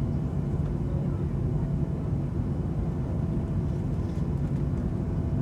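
Steady low drone inside an airliner cabin after landing, an even hum with a faint steady whine above it.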